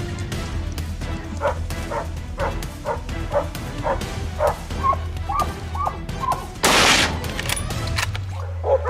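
Hunting dogs barking in a quick, regular series, about two barks a second, over background music. A loud, short burst of noise cuts in about seven seconds in.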